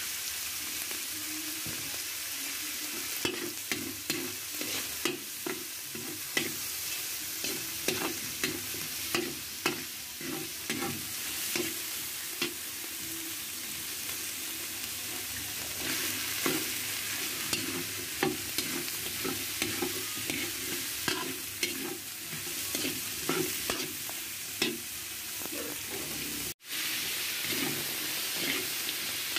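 Onion, garlic and chicken pieces sizzling in oil in a large wok, with a metal spatula scraping and clacking against the pan in irregular strokes as it stirs. Near the end the sound drops out for an instant, then the sizzling and stirring go on.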